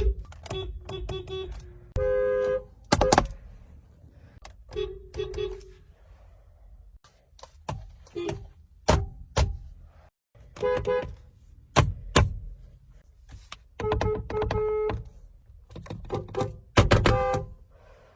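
Car horn honks: a rapid string of short beeps and a few longer blasts, a pitched two-note sound that starts and stops abruptly, cut together from separate clips.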